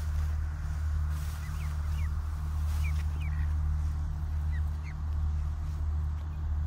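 Ducklings peeping: about eight short, high chirps scattered through the first five seconds, over a steady low rumble.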